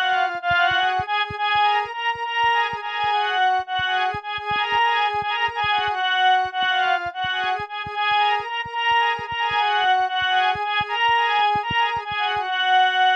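Instrumental folk-style music: a keyboard plays a melody in held, stepping notes over quick, uneven percussion hits.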